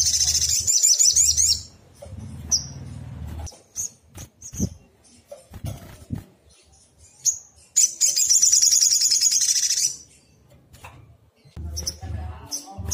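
A sunbird singing: long, rapid, high-pitched twittering trills about two seconds long, one at the start and another about eight seconds in, with short separate chirps between them.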